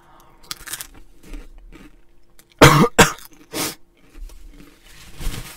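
A person coughing from the heat of Flamin' Hot Cheetos: a few small throat sounds, then three sharp, loud coughs in quick succession about two and a half seconds in, and a weaker one near the end.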